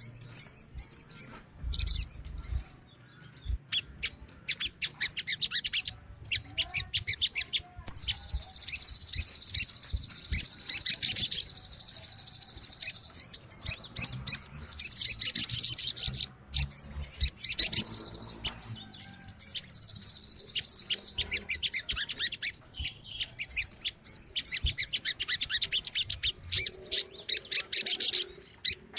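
A colony of sogon sunbirds chirping and trilling together, a dense run of very high, fast notes with long rattling trills.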